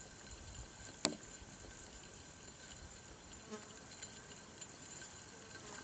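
Faint steady outdoor background with a thin high hum, broken by one sharp click about a second in.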